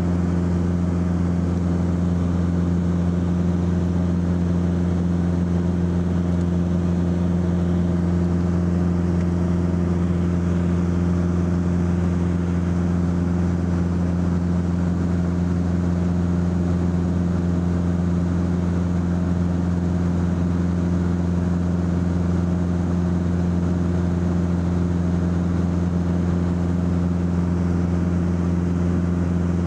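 Light propeller aircraft's engine droning steadily, heard from inside the cabin: a low, even hum that holds one pitch throughout.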